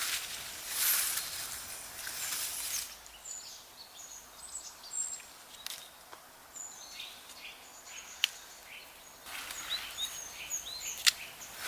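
Small garden birds chirping and twittering in short high calls throughout, with two stretches of hissy rustling noise, one near the start and one near the end, and a couple of sharp clicks.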